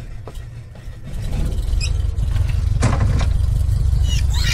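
Low, uneven rumble that swells about a second in and stays loud, with a few light clicks over it. Near the end a high squeal starts, falling in pitch.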